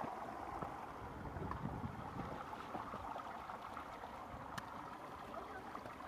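Steady rush of water running in a concrete channel, with irregular low thumps on the microphone.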